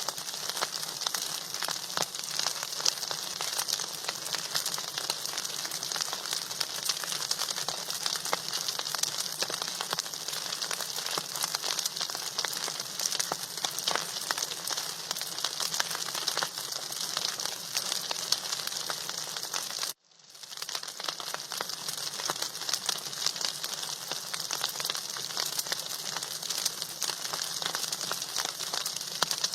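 Food frying in a hot pan: a dense, steady sizzle with constant fine crackling. It cuts out briefly about two-thirds of the way through and fades back in.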